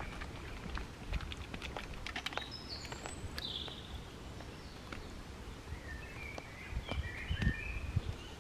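Small birds singing in short warbling phrases and high chirps, with a run of sharp cracks and clicks of footsteps on dry sticks and logs about a second in, and low thumps of footsteps and handling throughout.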